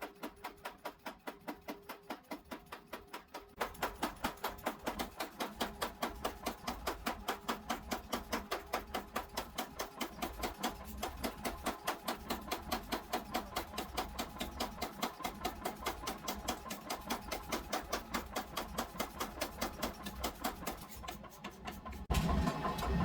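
Rapid, even hammer blows on steel during forging, about five a second, growing louder about three and a half seconds in.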